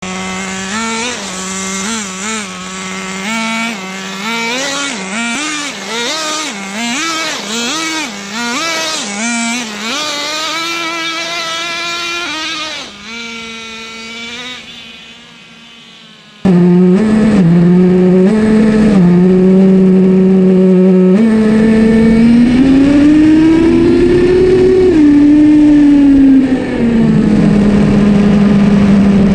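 Traxxas Jato 3.3 nitro RC car's small two-stroke glow engine, its throttle blipped over and over so the pitch jumps up and down, then held steady and fading away as the car drives off. About 16 seconds in, the engine is suddenly loud and close, running at steady pitches with a long rise and fall in pitch as it speeds up and eases off.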